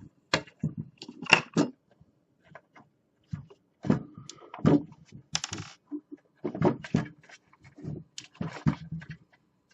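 Irregular plastic clicks and knocks, with a brief scrape about halfway through, as a snap-in power switch is pried out of the MP Select Mini 3D printer's plastic housing.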